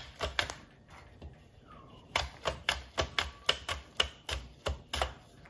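Cucumber being slid back and forth across a stainless-steel mandoline slicer's blade, each stroke a sharp clack, about three to four a second. The strokes pause for about a second and a half, then start again about two seconds in.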